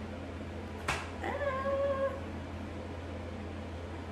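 A cat meows once, a single call lasting under a second that rises and then holds steady, just after a sharp click.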